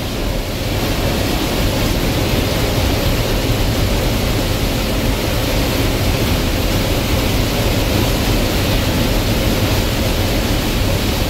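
Gleaner combine harvesting corn: a steady, dense machine rush of engine, threshing and the corn head gathering stalks, unbroken and even throughout.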